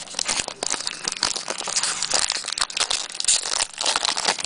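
Wrapper of a jumbo trading card pack being torn open and crinkled in the hands: a continuous dense crackling rustle.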